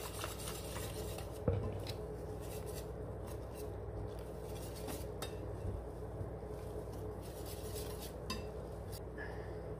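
Wire whisk beating a thin chickpea-flour and water batter in a glass bowl, its wires clinking and scraping against the glass, with a few sharper taps.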